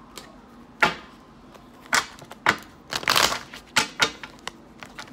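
Tarot deck being shuffled by hand: separate sharp card slaps and snaps, with a dense rustling flurry of cards about three seconds in.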